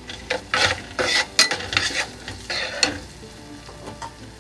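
Vegetable stir-fry sizzling in hot oil in a pan as it is stirred and tossed with a wooden spatula, in a run of irregular scraping, sizzling bursts that ease off after about three seconds.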